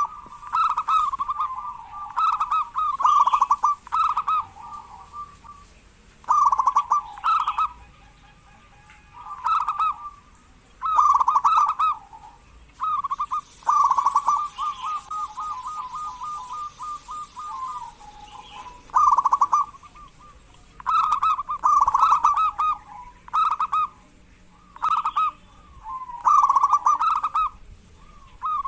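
Zebra dove (perkutut) cooing in short repeated phrases with pauses between them, and about halfway through one long, fast, rolling trill.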